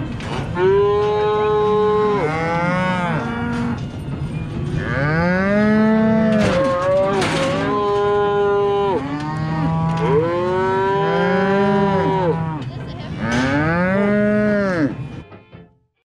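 Cattle mooing, several animals calling over one another in long drawn-out calls at different pitches, fading out near the end.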